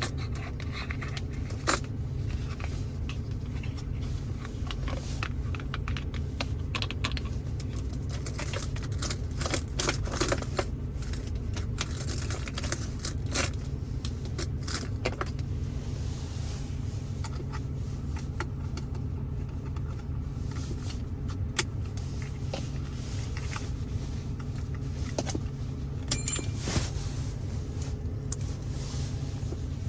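ASMR tapping and handling inside a Ford Focus's cabin: irregular light taps, clicks and small jingling rattles, busiest in the middle, over a steady low hum.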